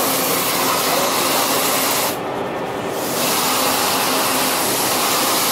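STU SDA-400 brush-sanding machine's rotating abrasive brush drum running with a thin cut-out workpiece pressed against it, giving a steady, loud hiss. About two seconds in, the hiss goes dull for under a second, then comes back.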